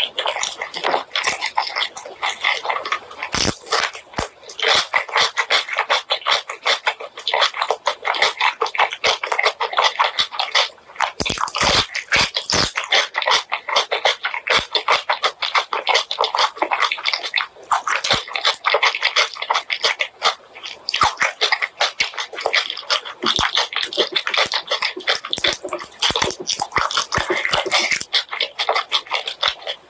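Close-miked wet chewing and mouth smacking while eating spicy pork leg curry with white rice, a dense run of rapid moist clicks with a few sharper snaps.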